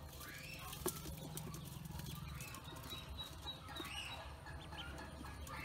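A bowlful of ducklings peeping here and there while they peck at grain in a metal bowl, their bills and feet making small taps and scrapes on the metal; one sharp tap stands out about a second in. A low steady hum sits underneath.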